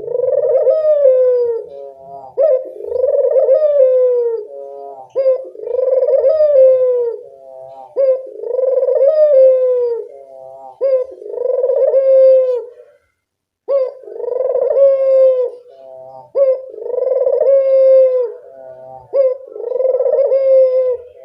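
Barbary dove (burung puter) cooing over and over in a loud, busy 'gacor' run: each phrase is a short note followed by a long, slightly falling coo, repeated about every two and a half seconds. Just past the middle there is a brief gap of total silence.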